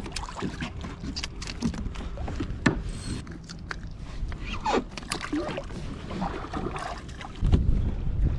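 Handling noises in a plastic kayak while a speckled trout is unhooked: scattered small clicks, taps and scrapes of the hook, line and gear. A louder low rumble comes in near the end.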